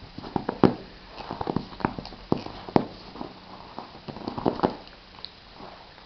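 A pet scratching and digging with its paws and nose at a couch cushion and pillow: irregular scuffs and taps in quick clusters.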